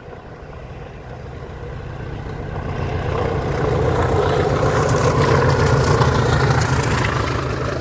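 A pair of Class 20 diesel locomotives, their English Electric V8 engines working with exhaust smoke showing, approaching and passing close by. The engine sound builds steadily, is loudest about halfway through as they go past, then begins to ease near the end.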